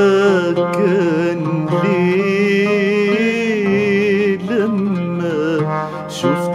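A man sings an Arabic tarab song in long, wavering, ornamented held notes, accompanied by an oud.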